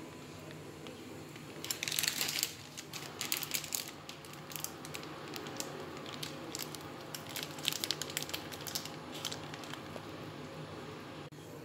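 Plastic bag crinkling in irregular bursts as it is squeezed and tipped out over a pot, loudest about two seconds in and again near the end.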